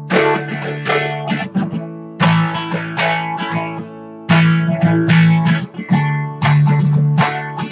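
Acoustic guitar strummed hard, a heavy chord about every two seconds with lighter strokes between, picked up by a webcam's built-in microphone, which the player says distorts on the strumming with a flanger-like wobble.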